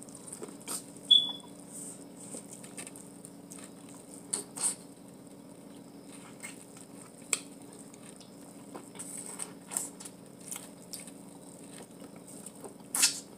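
Eating sounds close to the microphone: scattered wet mouth clicks, lip smacks and chewing while biting seasoned corn on the cob from a seafood boil, with a sharper smack near the end, over a steady low room hum.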